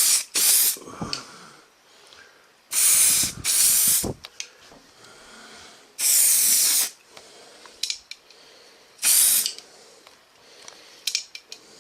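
Aerosol can of spray primer spraying in six short bursts, each a quarter of a second to about a second long, with pauses between them.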